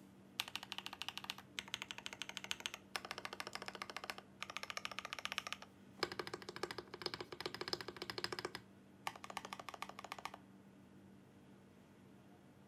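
Rama M65-B 65% mechanical keyboard with lubed Yok Holy Panda tactile switches, a brass plate and GMK keycaps, typed on fast: rapid keystroke clacks in several runs with short pauses between them, stopping about two seconds before the end. A faint steady hum lies underneath.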